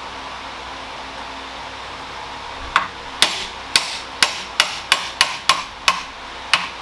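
Hammer blows driving the old driveshaft mid-shaft bearing off the shaft through a large socket, with the shaft held in a vise. About three seconds in come about ten sharp, ringing metal strikes, two to three a second, over a steady hiss.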